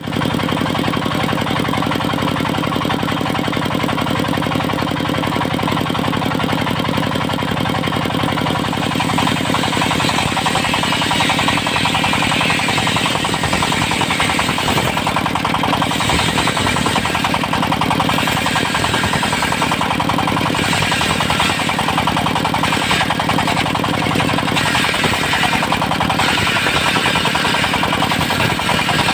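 Diesel-engine-driven portable circular sawmill running steadily, its saw blade cutting teak; a harsher sawing noise builds from about nine seconds in.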